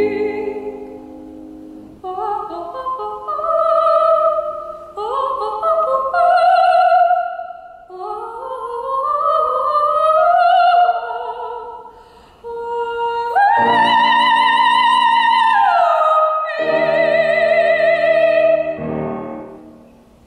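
Operatic soprano singing the closing phrases of a song to grand piano accompaniment, with wide vibrato. The phrases climb to a long, loud high note past the middle, which drops into a final held note over piano chords and fades near the end.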